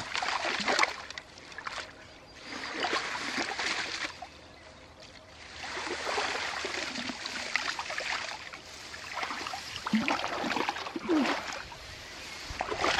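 Water splashing and pouring off a wet fishing keepnet's mesh as it is hauled out of a lake, coming in several surges with short lulls between as each length is lifted.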